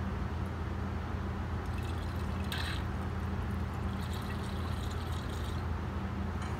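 Deionized water running from a lab sink tap into a glass pycnometer flask of sand, filling it toward the top. The water comes in two spells, about two and four seconds in, over a steady low hum.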